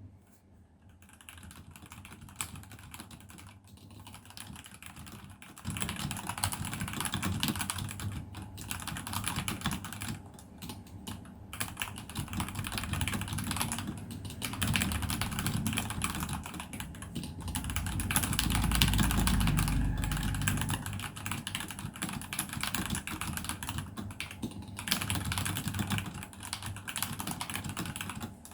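Continuous fast typing on a computer keyboard, a dense run of key clicks. It is faint at first and becomes clearly louder about six seconds in, with a low rumble under the typing around nineteen seconds.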